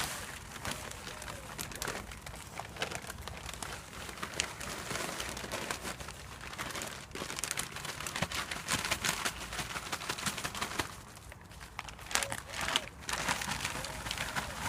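Gritty crunching and scraping of concrete mix being worked with a spade around a newly set fence post, as many short, irregular scrapes with a brief lull near the end.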